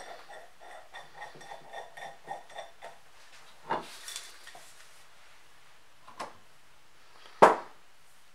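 Metal rods clinking and knocking against each other and against the mortiser's metal base frame as they are handled: a quick run of light, ringing clinks over the first three seconds, then a few separate sharper knocks, the loudest about seven and a half seconds in.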